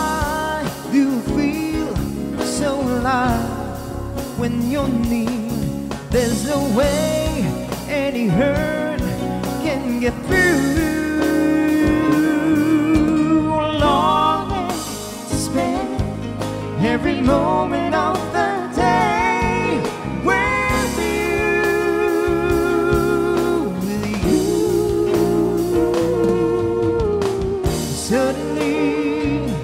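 Live duet: a man and a woman singing a slow song into microphones, with vibrato on held notes, backed by guitar and violin.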